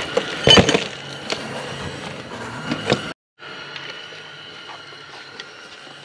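Metal tool clinks and knocks as filter pliers are worked onto a skid steer's spin-on fuel filter. There is a loud knock about half a second in, then a few lighter clicks over a steady shop hum, which drops out briefly near the middle.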